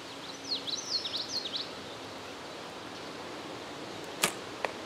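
A compound bow is shot about four seconds in, with one sharp snap of the string on release; a fainter knock follows less than half a second later. Before that, a bird sings a short run of quick high chirps over quiet outdoor ambience.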